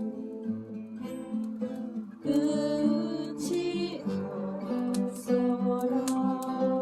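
Music led by an acoustic guitar, steady chords that get louder about two seconds in.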